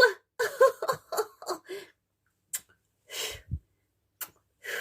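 A person giggling in a quick run of about six short voiced bursts, then a few breaths and a soft low thump about three and a half seconds in.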